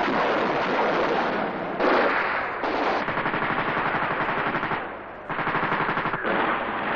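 Film battle soundtrack: a dense roar of heavy fire for the first second or so, then long bursts of rapid machine-gun fire, broken by a short pause about five seconds in.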